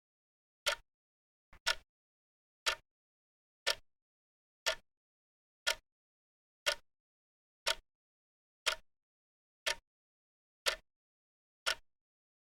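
Clock ticking once a second with sharp, even ticks, the countdown timer's ticking track. A fainter extra click comes once, about a second and a half in.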